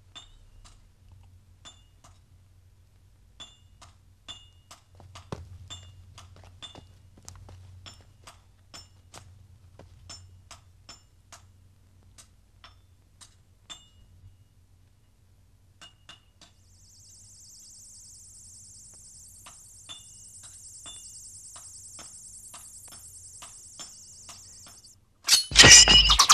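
Sparse, light metallic clinks and taps, each with a short high ring, over a quiet background. Later comes a steady high hiss lasting several seconds. About a second before the end, a sudden, much louder burst of noise breaks in.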